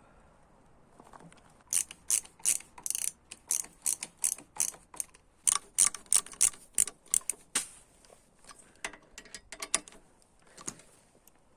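A long, irregular run of sharp ratcheting clicks, about two or three a second, starting about two seconds in and thinning out near the end.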